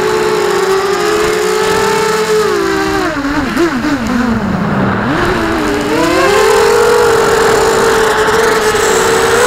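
FPV quadcopter's brushless motors whining as several close tones together. About two and a half seconds in, the pitch drops and wavers as the throttle comes off for a dive, then climbs back up about six seconds in.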